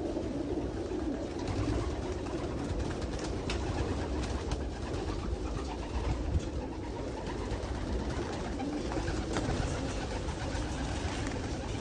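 A crowd of racing pigeons cooing together in a loft, a dense steady murmur of many birds at once. A few sharp clicks and one louder knock about six seconds in.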